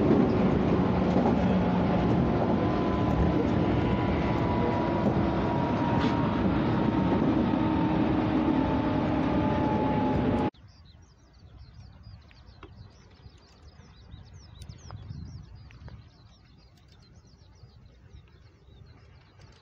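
JNR 185 series electric train running, heard from inside the car: rail and running noise with a steady whine that drifts slightly lower in pitch. About ten seconds in it cuts off suddenly to a quiet open-air background with small bird chirps and a faint distant rumble.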